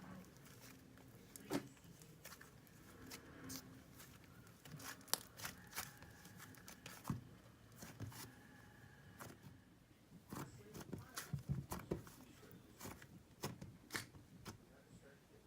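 Butter slime being worked by hand, giving irregular sticky clicks and pops, with a quick run of them about ten to twelve seconds in.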